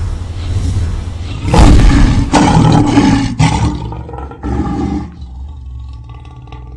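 Lion-roar logo-reveal sound effect: a low rumble swells into a loud roar with sharp hits about a second and a half in, roars again more briefly about four and a half seconds in, then settles into a sustained ringing tone.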